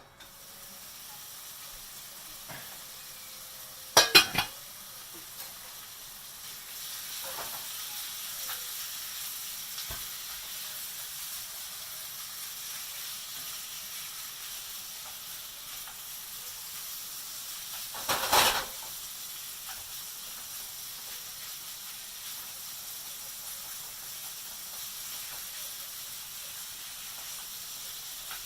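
Food sizzling in a frying pan: a steady hiss that grows a little louder about six seconds in. Two sharp clatters stand out, about four seconds in and again around eighteen seconds.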